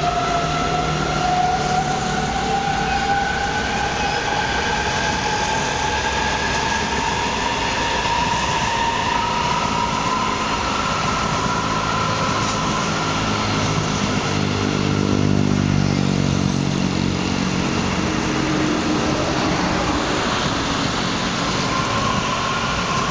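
CRH1E high-speed electric multiple unit running past on the line, its traction motors whining in two clear tones that rise slowly in pitch as the train picks up speed, over steady wheel-on-rail rumble. A deeper hum swells a little past the middle.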